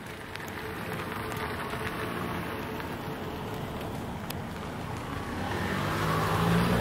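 A motor vehicle's engine running over a steady background hiss, the engine hum growing louder toward the end.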